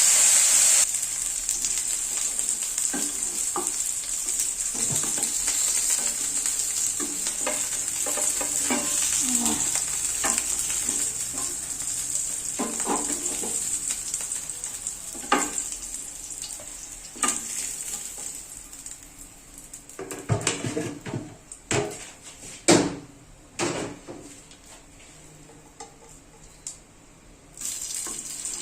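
Food sizzling in a frying pan while a utensil stirs and scrapes against the pan, with scattered clicks and knocks. The sizzle drops sharply about a second in and then fades, and several louder knocks come in the last third.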